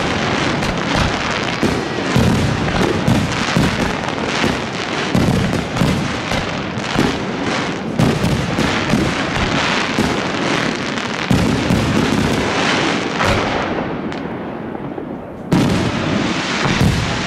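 Fireworks display: aerial shells bursting one after another with crackling. A short lull is followed by a sudden loud burst near the end.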